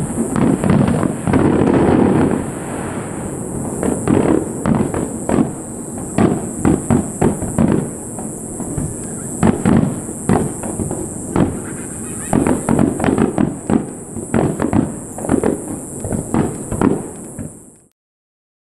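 Fireworks going off: a rapid, irregular string of bangs and crackles, over a steady high hiss, that cuts off abruptly near the end.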